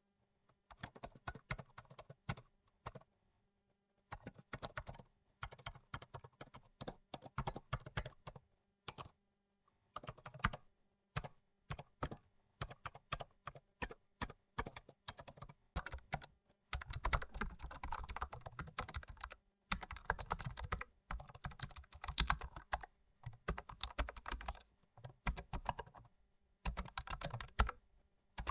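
Typing on a computer keyboard: rapid runs of keystroke clicks broken by short pauses. About halfway through, the typing becomes denser and the keystrokes have a deeper thud to them, as if on a different keyboard.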